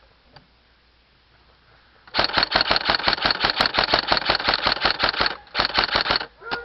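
Airsoft rifle firing full-auto in rapid bursts, roughly eight to ten shots a second: after about two seconds of near quiet, a long burst of about three seconds, a short pause, a second shorter burst, then a single shot near the end.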